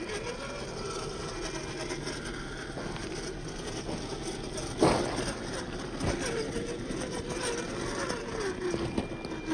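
Reely Free Men 1:10 RC rock crawler's electric motor and gear drive whining as it crawls over rocks, the pitch wavering up and down with the throttle. A sharp knock about five seconds in and a smaller one a second later as the crawler clambers over the stones.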